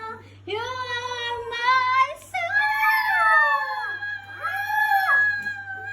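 A Shih Tzu howling along with a woman singing: long, wavering howls that slide up and down in pitch, overlapping her held notes.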